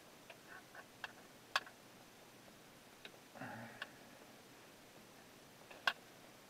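Hand wire stripper snapping shut on a harness wire as the insulation is stripped: a few sharp clicks, unevenly spaced, the loudest about a second and a half in, with faint handling rustle between them.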